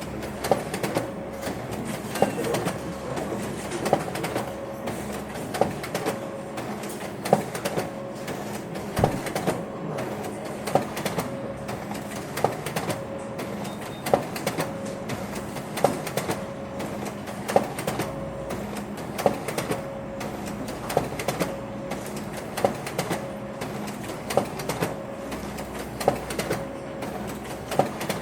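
Office printer running: a steady mechanical hum with a regular clack about every second and a half, and lighter clicks in between.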